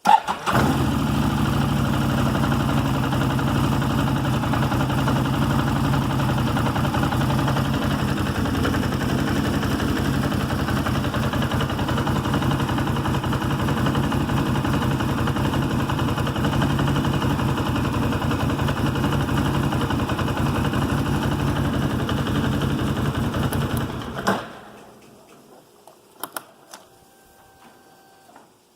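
2008 Can-Am Outlander 650's Rotax V-twin engine catching right at the start and idling steadily for about 24 seconds, then switched off and running down. A few faint clicks follow.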